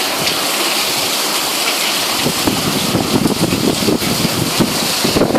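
Heavy typhoon rain and water pouring down from the roof, splashing onto a flooded balcony in a steady, loud rush.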